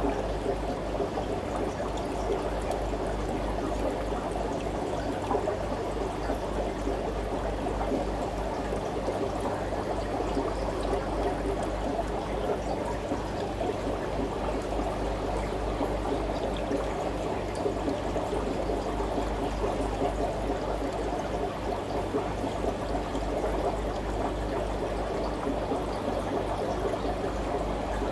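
Aquarium water trickling steadily, with a low steady hum underneath.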